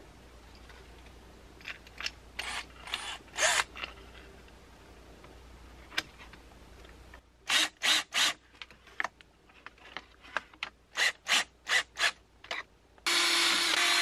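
Scraping and small clicks of parts being handled and held against a board, then a run of short sharp clicks. About a second before the end, a DeWalt cordless drill starts running steadily, driving a mounting screw.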